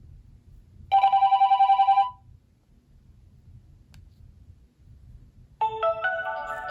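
Ringtones playing at medium volume from a Nokia N91's single mono loudspeaker. About a second in comes a fast-pulsing two-tone phone ring lasting about a second. After a short pause, a melodic ringtone of stepping synthesized notes starts near the end.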